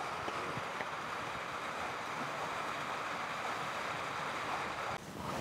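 Corn tortillas cooking on a hot iron comal, giving a steady sizzling hiss with a few faint crackles; it stops abruptly near the end.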